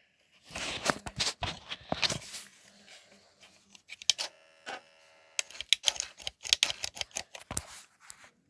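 Rapid plastic clicking and clattering from a toy RC car's remote control being handled, its buttons and switches pressed, with a short buzzing tone about halfway through.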